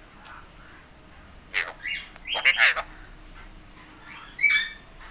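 Alexandrine parakeet giving a few short calls: one about one and a half seconds in, a longer run around two and a half seconds, and another near the end.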